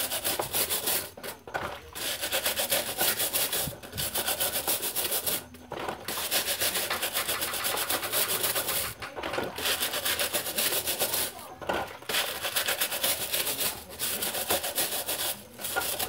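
Brush scrubbing a metal wire fan guard in quick circular strokes: a rapid, scratchy rasping in bouts of a few seconds with short pauses between.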